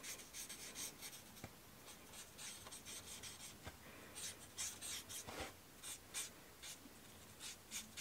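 Stampin' Blends alcohol marker nib rubbing over stamped paper in short, irregular strokes, a faint scratching as the lighter smoky slate shade is worked over the darker one to blend the shading.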